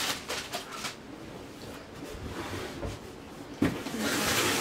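A metal light stand being handled as it is pulled out of its plastic bag: plastic rustling and small clicks, and a sharp knock of the stand a little past three and a half seconds in.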